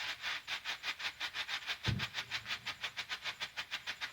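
Small ground strobe firework flashing, giving a rapid, even pulsing hiss at about eight pulses a second. A single low thump about two seconds in.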